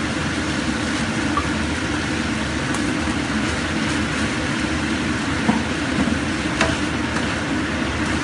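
Diced chicken and mushrooms stir-frying in a nonstick wok: a steady sizzling rush, with the spatula scraping the pan and tapping it a few times.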